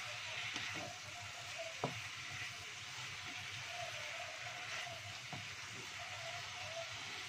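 Capcay vegetables and meatballs sizzling as they are stir-fried in a wok. A wooden spatula turns them and knocks against the pan a few times, loudest about two seconds in.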